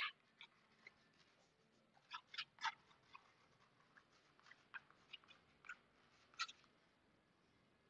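Chalk writing on a blackboard: faint, short scratches and taps of the chalk stroke by stroke, with a little cluster of them about two and a half seconds in.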